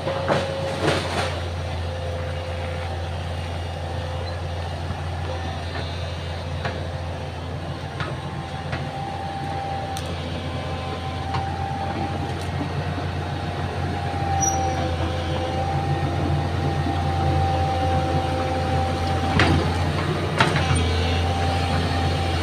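Excavator engine running steadily with a high whine through the middle, and a few sharp knocks, two of them close together near the end.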